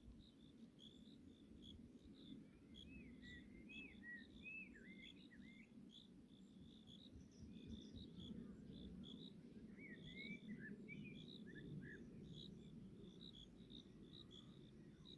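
Faint birdsong: a steady run of short high chirps, with lower whistled notes that glide up and down about three to five seconds in and again about ten seconds in, over a low rumbling background.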